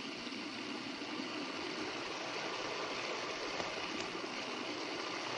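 Two streams of water from a Kelvin water-drop generator falling steadily into plastic pails, making a continuous splashing hiss.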